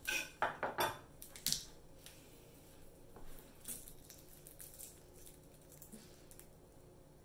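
Kitchen knife knocking on a wooden cutting board as a garlic clove is cut and crushed under the blade: about five sharp knocks in the first second and a half. After that only faint small sounds as the garlic skin is peeled off by hand.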